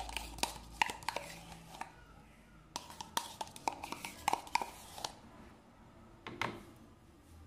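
A spoon scraping and tapping in a tub of requeijão (spreadable cream cheese) and against the containers, a scatter of small clicks and knocks in clusters: one about a second in, a busier run from about three to five seconds in, and a last pair near the end.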